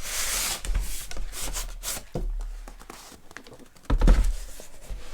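Cardboard packaging being handled and opened: rubbing and sliding of the box with small taps and clicks, and a dull thump about four seconds in.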